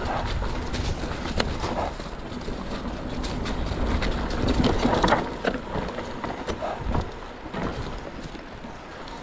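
Mountain bike riding down a dirt singletrack trail: the tyres rolling and crunching over the ground, with frequent sharp clicks and rattles from the bike, loudest about five seconds in.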